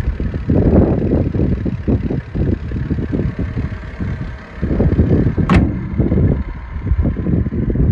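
Gusting wind buffeting the microphone, rising and falling unevenly, with one short rising whistle about five and a half seconds in.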